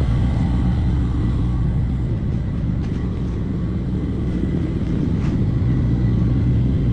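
A steady low mechanical rumble, like a running engine or machine.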